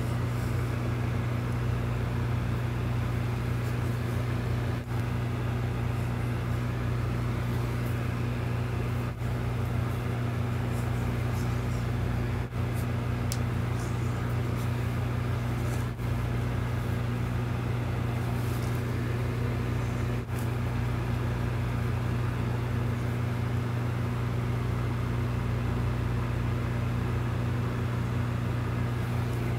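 Steady low hum with a hiss over it, dropping out for an instant about five times. No menu music or voice is heard.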